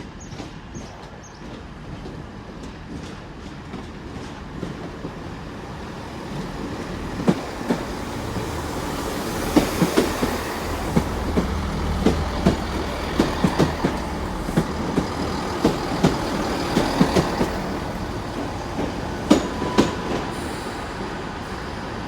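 Class 166 Turbo diesel multiple unit coming into the platform, its engine sound growing louder as it nears. From about a third of the way in, its wheels clack repeatedly over rail joints and points, and there is a brief squeal near the end.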